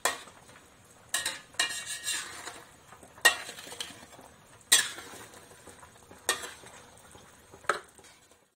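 A long metal spoon stirs thick beef gulai in a metal pot, scraping and knocking against the pot's side and bottom about seven times at irregular intervals of a second or so.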